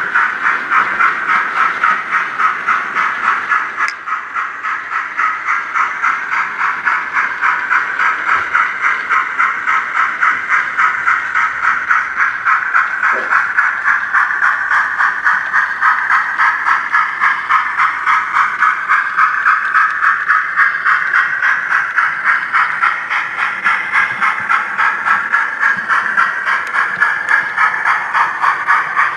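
Model A4 steam locomotive's sound system playing a steady steam chuff, about three beats a second, with a hiss through each beat, as the engine runs at a constant speed.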